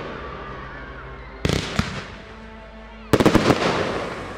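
Aerial fireworks shells bursting: a loud bang about a second and a half in with a second crack just after it, then a rapid cluster of several bangs about three seconds in, each trailing off in an echo.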